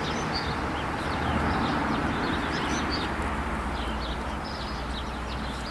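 Birds chirping and singing, many short calls, over a steady rushing background noise.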